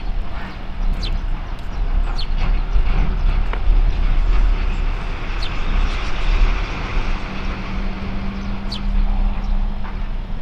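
Strong wind buffeting the microphone: a loud, gusting low rumble with a rushing haze over it and scattered light ticks. A steady low hum joins about seven seconds in.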